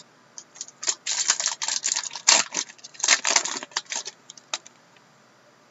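Trading-card pack wrapper crinkling and cards being handled: a dense run of crackles and clicks that stops after about four and a half seconds.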